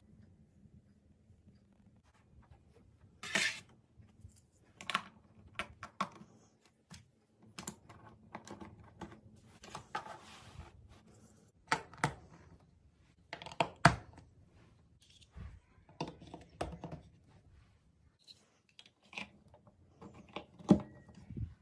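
Scattered, irregular clicks and knocks of hard plastic marble run track pieces being handled and fitted together, with a louder knock now and then.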